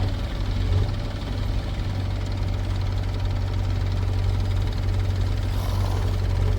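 Heavy diesel engine running steadily with an even, low hum.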